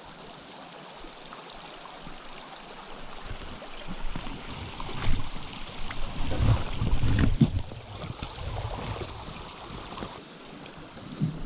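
Small mountain stream flowing steadily over plunge pools. About four seconds in, a stretch of louder, irregular low rumbling and a few knocks rises over it for several seconds, then falls back.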